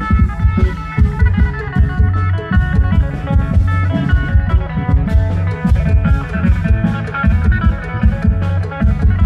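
Isan klong yao long-drum band playing a fast, dense drum beat under a plucked, guitar-like string melody.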